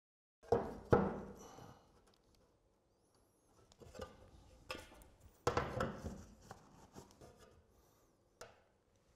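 Roofing slates being set down and shifted into place on timber battens: a series of sharp clacks and knocks of slate against slate and wood. The loudest two come near the start and a cluster follows about halfway through.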